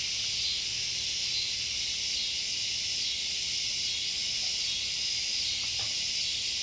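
Steady, high-pitched chorus of insects, crickets or cicadas, droning without a break.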